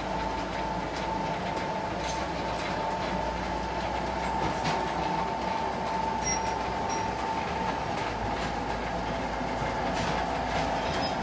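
Vehicle lift lowering a car: a steady mechanical whine with a few faint clicks.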